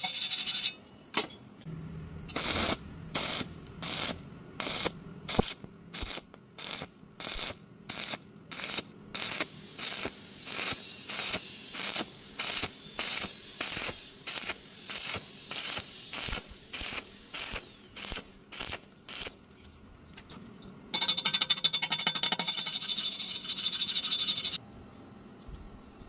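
A hand tool scraping metal in short, even strokes, about two a second for some fifteen seconds, then a few seconds of continuous rasping.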